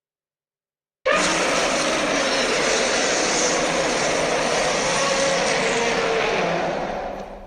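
A long, harsh monster roar made for Disney's Beast, mixed from lion, tiger and movie-monster roars. It starts suddenly about a second in, holds for about six seconds and fades out near the end.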